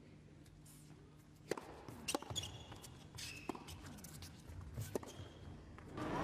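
Tennis ball struck by rackets and bouncing during a rally on an indoor hard court: a handful of sharp separate pops a second or so apart, with a few short shoe squeaks. A loud crowd noise rises at the very end.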